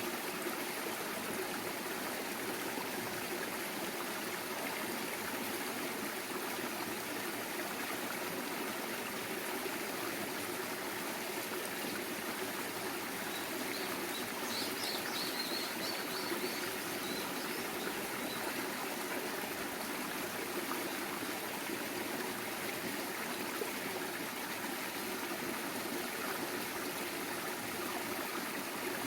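Clear mountain stream flowing over rocks, a steady rushing and trickling. About halfway through, a bird gives a short run of high chirps.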